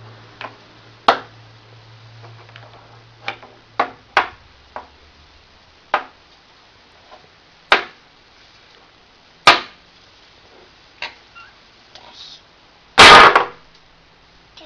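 Toy blocks knocking and clacking together as a toddler handles and stacks them: about ten sharp separate knocks at irregular intervals, then a longer, louder clatter of several blocks near the end.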